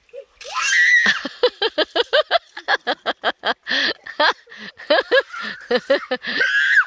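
A person laughing in a long run of quick, pitched bursts, with a high squeal about a second in and another near the end.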